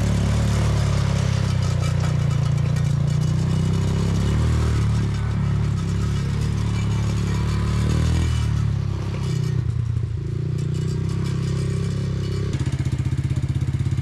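Quad bike (ATV) engine running as the ATV is ridden about. About twelve seconds in, it gives way to an ATV engine idling close by with a steady, even beat.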